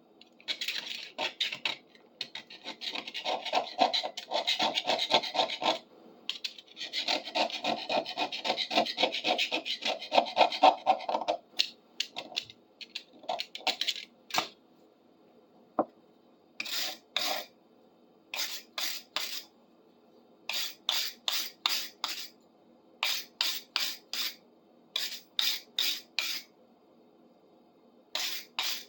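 A sooty, rusty fireplace poker being scrubbed by hand with an abrasive to clean it after a vinegar soak. There are two long spells of fast back-and-forth scrubbing, then shorter strokes in quick groups of three to five.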